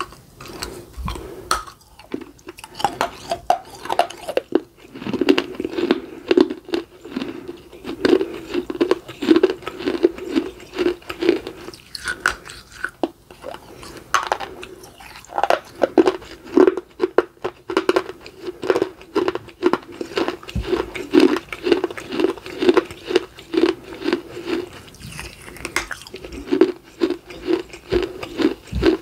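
Close-up crunching and chewing of baked clay: pieces bitten off with sharp crunches, then chewed in runs of quick, even strokes about three a second.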